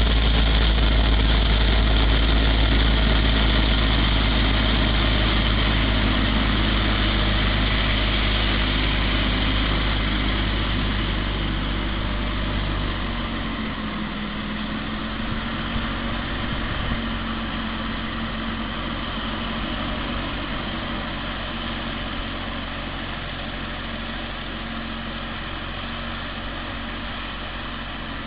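Wheel Horse 416 garden tractor engine running with its front-mounted snow thrower throwing snow, growing steadily fainter as the tractor moves away. A strong low rumble drops away about halfway through.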